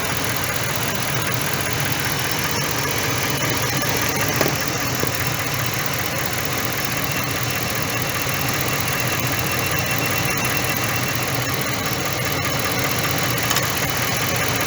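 A 2012 Dodge Ram's V8 engine idling steadily.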